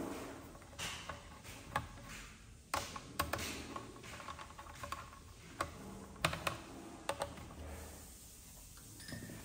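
Irregular light clicks and taps from hands working on small computer hardware, a dozen or so sharp ticks at uneven intervals over a faint steady hum.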